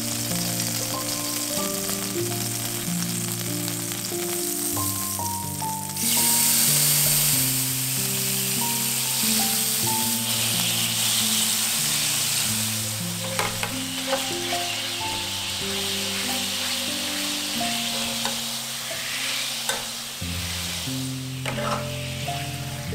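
Food sizzling in a hot frying pan. The sizzle starts suddenly about six seconds in, when ingredients go into the hot fat, and a few sharp taps of a utensil against the pan come later, over background music.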